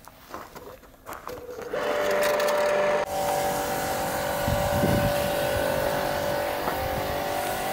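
Electric pressure washer starting up about two seconds in and running with a steady high whine, its spray adding a hiss from about three seconds in as the dirty boat hull is washed.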